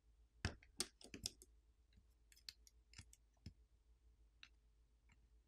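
Metal spudger clicking and tapping against a smartphone's subboard connectors and plastic frame as flex-cable connectors are pried and unlatched: a quick cluster of sharp clicks in the first second and a half, then scattered faint ticks.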